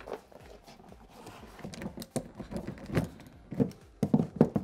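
Scattered taps, crinkles and soft knocks as hands handle and press foil-backed Kilmat butyl sound-deadening sheets onto a truck door's sheet-metal panel. The knocks grow louder and closer together in the second half.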